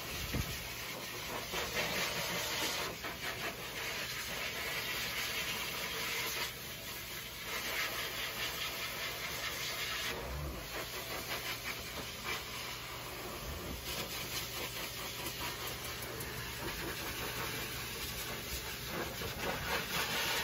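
Pet grooming blow dryer blowing air over a wet dog's coat: a steady motor and air rush that swells and eases every few seconds.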